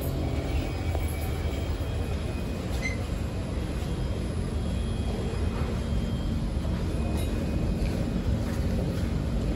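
Steady low rumble and hum inside a Singapore MRT C151 train, with a few faint high tones above it.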